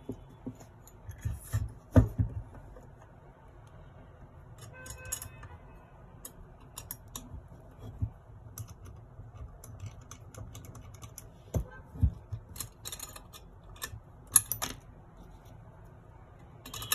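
Small metal parts of a brass model Stirling engine kit clicking and tapping against each other and the tabletop as they are handled and fitted together, with a few louder knocks.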